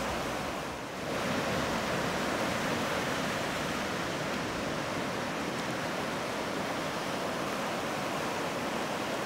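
Ocean surf breaking on a beach: a steady rush of waves that dips slightly just before a second in, then swells again as the next wave comes in.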